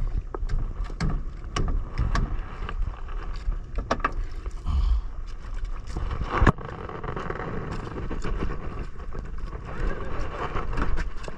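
Small boat at sea in strong wind: wind rumbling on the microphone, water noise, and scattered knocks, the loudest about six and a half seconds in.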